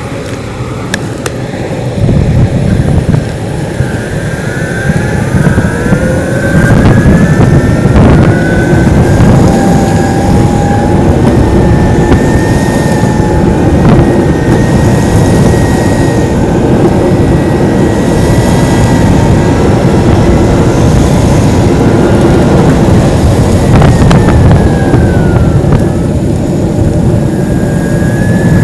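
Loud wind buffeting on the microphone while riding a Metroboard electric skateboard, with the board's electric motor whine rising in pitch over a few seconds as it speeds up, then holding steady.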